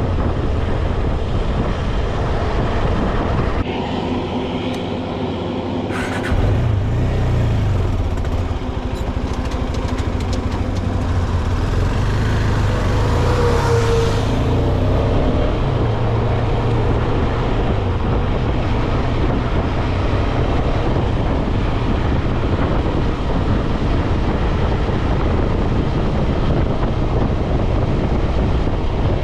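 KTM 250 Adventure single-cylinder engine running at road speed, with wind rushing over the microphone. The engine note drops back about four seconds in and pulls strongly again about six seconds in.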